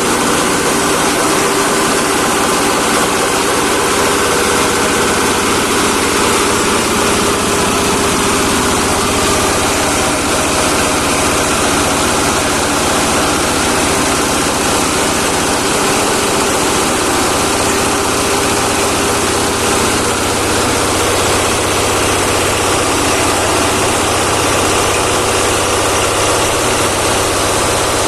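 Compost shredder for branches and organic waste running steadily, its engine and rotor making a loud, even din.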